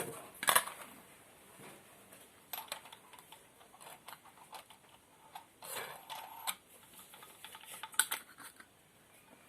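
Scattered light metal clinks and knocks of steel pieces and tools being handled, a sharp one about half a second in and another near the end; no grinder running.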